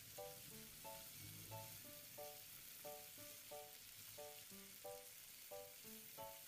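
Very quiet background music of short, evenly paced notes, about three a second, over a faint sizzling hiss of mashed-potato stuffing frying in oil in a non-stick pan.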